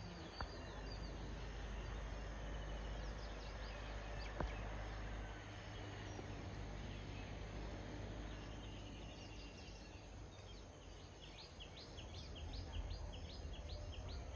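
Quiet outdoor ambience: a low rumble on the microphone, a single click about four seconds in, and faint high chirps repeating a couple of times a second near the end.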